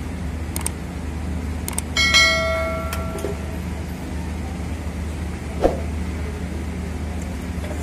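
A steel wrench strikes the compressor's metal cylinder head about two seconds in and rings for about a second, over a steady low hum. A few lighter metal clicks come before it, and a dull knock comes later.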